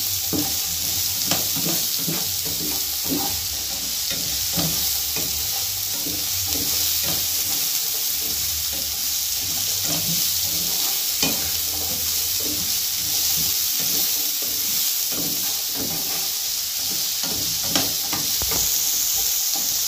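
Diced carrots and onion sizzling in hot oil in a nonstick frying pan, while a spatula stirs them with irregular scrapes and light knocks against the pan.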